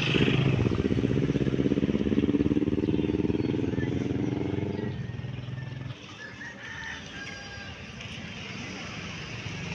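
Motorcycle engine running loud and close, its pitch creeping up for about five seconds, then fading and dropping away about six seconds in.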